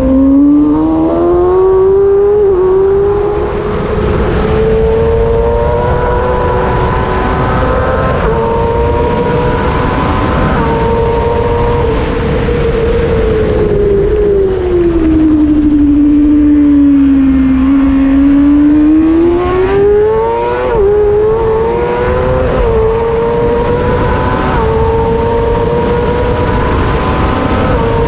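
Kawasaki ZX-6R's inline-four engine screaming at high revs under racing, climbing through the gears with several quick upshifts. In the middle it falls to about half its pitch as the rider brakes and downshifts, then pulls hard back up and shifts again, over a steady rush of wind noise.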